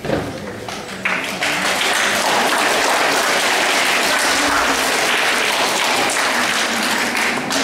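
An audience applauding, swelling over the first second and a half and then holding steady.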